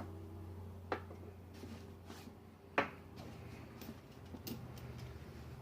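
Metal hand tools handled and set down on a table: two sharp clicks, the louder near the three-second mark, then a few faint ticks, over a steady low hum.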